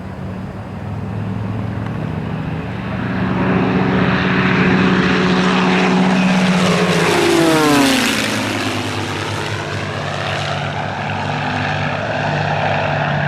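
Propeller aircraft flying a close pass, its engine and propeller note growing louder and then dropping sharply in pitch as it goes by about eight seconds in, then carrying on at a lower, steadier pitch as it moves away.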